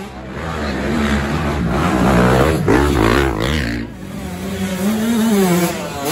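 Off-road dirt bike engines revving hard under load on a steep dirt hill climb, pitch rising and falling as the throttle is worked, loudest about two to three seconds in.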